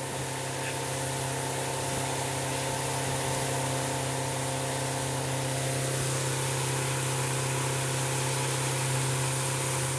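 Motorboat engine running steadily under way: a constant low hum over rushing water and wind hiss.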